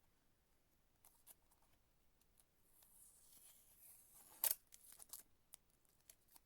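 Faint handling of a trading-card pack and cards: a soft rustling hiss lasting a second or two, then a sharp click about four and a half seconds in, followed by a few lighter clicks.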